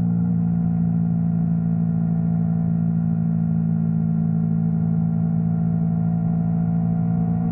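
Yamaha R3 motorcycle's parallel-twin engine running at steady revs while riding, a steady drone with no change in pitch.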